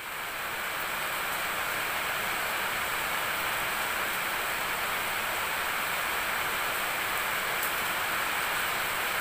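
A steady, even hiss, with one faint tick about three-quarters of the way through.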